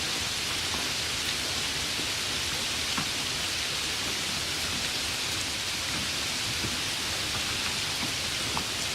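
Steady light rain falling, an even hiss with the odd louder drop ticking through it.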